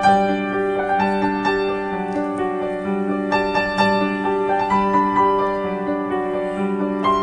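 Background keyboard music with a piano sound: a melody of single struck notes over held lower notes.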